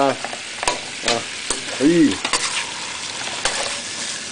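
Deboned duck feet sizzling in braising sauce in a pan, with a few sharp clicks and scrapes of a utensil against the pan as they are stirred and dished up.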